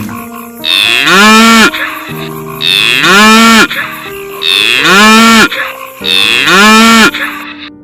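Cow mooing four times, the same drawn-out call repeated about every two seconds, each rising and then falling in pitch.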